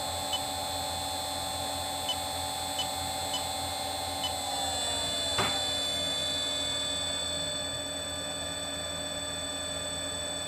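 Three-phase ABB motor fed by an ABB variable-frequency drive, running with a steady electric hum and whine. About four seconds in, one tone of the whine slides down in pitch. A few faint ticks and one sharp click are heard along with it.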